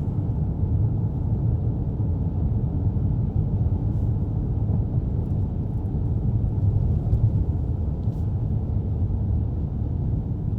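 Steady low rumble of car road and engine noise heard from inside the cabin while driving.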